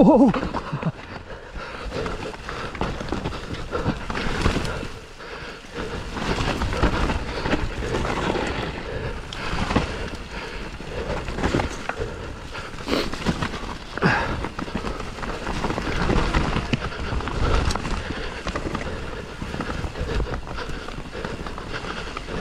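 A Santa Cruz Bronson mountain bike riding down a rough trail: the tyres rumble over the ground and the bike clatters with frequent knocks over bumps. Wind buffets the microphone.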